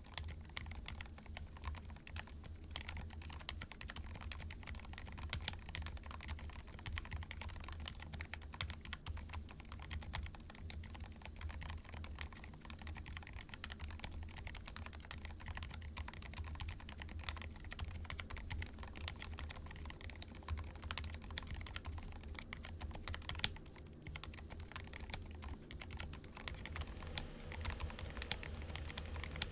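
Steady typing on an AKKO ACR Top 40 40% mechanical keyboard fitted with lubed AKKO Haze Pink silent linear switches and SA keycaps: a dense run of keystrokes, with one louder key hit about 23 seconds in.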